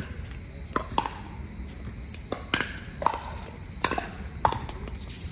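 Pickleball rally: paddles striking the hollow plastic ball in a series of sharp pops, roughly one or two a second at uneven intervals, some with a brief ringing ping.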